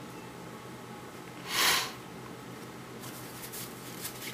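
A man's short sniff through the nose about a second and a half in, with a few faint ticks of baseball cards being handled near the end.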